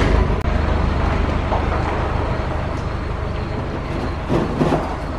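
Box truck engine running as the truck pulls away and drives off, its low hum slowly easing in loudness. A brief louder surge comes about four seconds in.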